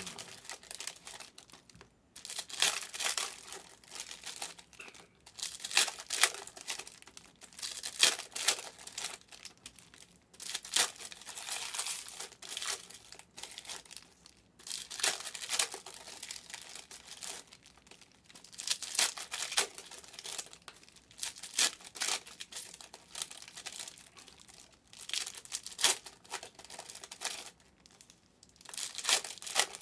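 Foil wrappers of Donruss Optic basketball card packs being torn open and crinkled by hand, in repeated rustling bursts a second or two long with short pauses between them.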